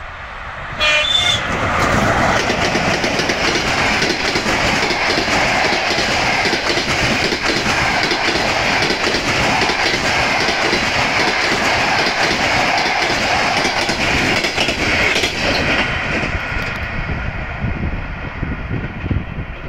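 ChS7 electric locomotive gives a short horn signal about a second in. Then the locomotive and its passenger coaches pass close by with steady running noise and the clickety-clack of wheels over rail joints, which fades as the train draws away near the end.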